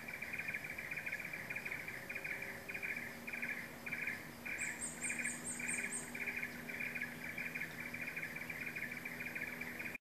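Wild animal calls from roadside trees: a continuous shrill chorus that pulses about twice a second, with a quick run of about seven high chirps about halfway through.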